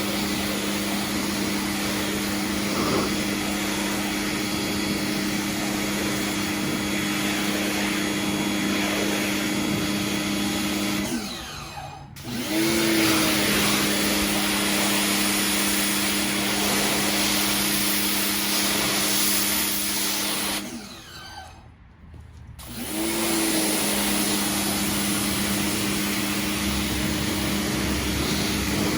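Pressure washer running with a steady motor hum under the hiss of the spray. It cuts out twice for a second or so and starts up again each time with a short rising whine, as the trigger is released and squeezed again.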